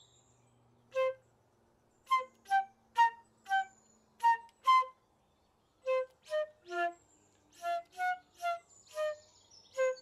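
Solo flute playing short, detached notes at varied pitches in two quick phrases, with a brief pause around the middle; the first note comes about a second in.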